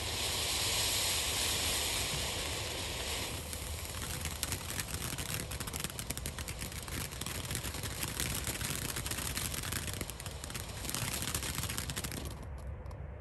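Shogun USA Fountain ground fountain firework burning. It opens with a steady hiss of spray, and about four seconds in turns to dense, rapid crackling from its dragon-egg crackle stars, thinning out near the end.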